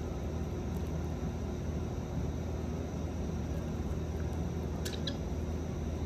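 Steady low background hum and hiss, with a brief double chirp from a budgerigar about five seconds in.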